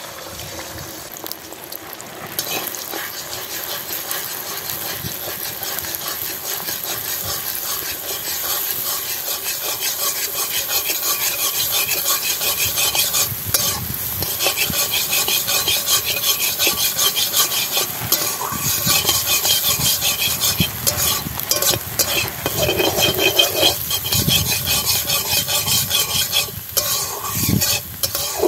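Beaten eggs sizzling in hot oil in a metal kadai (wok) while a metal spatula stirs and scrapes them against the pan; the sizzle grows louder over the first several seconds and then carries on with repeated scraping strokes.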